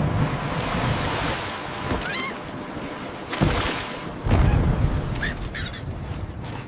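Rushing, splashing water like waves washing over, with a couple of short squeaky chirps about two seconds in and heavier splashing thuds in the second half.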